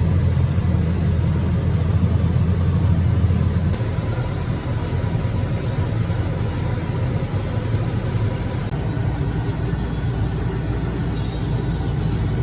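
Farm tractor engine running steadily under way, a loud low rumble that eases slightly about four seconds in.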